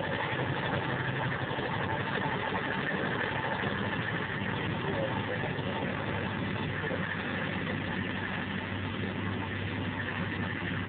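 Small narrow-gauge diesel shunting locomotive's engine running steadily as it moves along the track.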